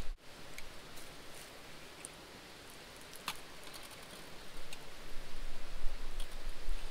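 Wood campfire crackling with a faint hiss and scattered sharp pops, the brightest about three seconds in. A low rumble comes in during the second half.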